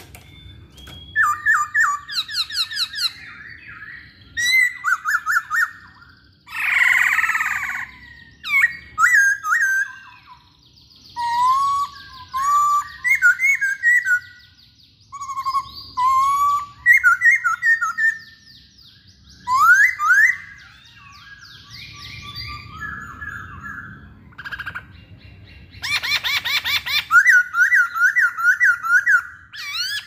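Black-throated laughingthrush singing a long, varied song of loud whistled phrases, fast repeated notes and trills. It is broken twice by a harsh rasping note, about seven seconds in and near the end.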